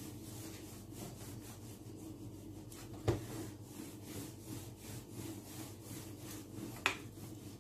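Rolling pin rolled back and forth over yeast dough on a floured countertop, a steady rubbing, with two sharp knocks about three seconds in and near the end.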